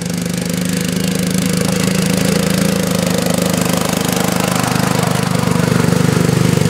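Ride-on lawn mower engine racing uphill at a steady pitch, growing louder as the mower comes close.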